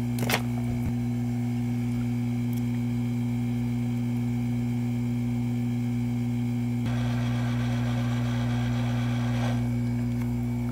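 Steady electrical hum, low and even throughout. A single click comes just after the start, and a hiss joins in about seven seconds in and fades out about two and a half seconds later.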